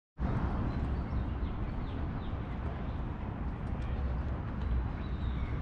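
Outdoor city ambience: a steady low rumble with a few faint, short bird calls over it.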